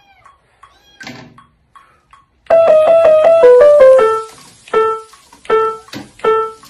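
A few faint high kitten mews in the first two seconds, then piano music comes in loud: a quick falling run of notes, then single notes struck one at a time about every three-quarters of a second.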